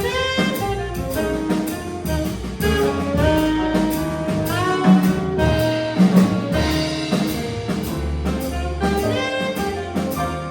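Live jazz combo playing: a melody line that slides into its notes over drum kit and bass.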